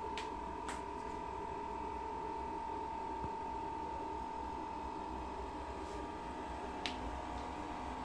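Diesel air heater running: a steady high whine with a low rumble beneath, and no regular ticking of a fuel dosing pump. A couple of faint clicks sound near the start and one near the end.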